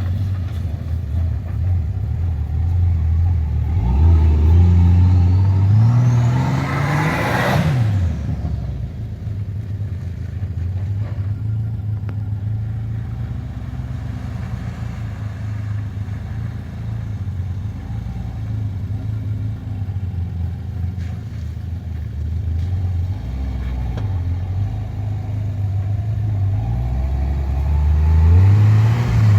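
Turbocharged Nissan TB42 inline-six engine running hard and revving up and down. About six seconds in, a loud rev climbs with a high whistle sweeping up in pitch, then falls away. Near the end the revs build again.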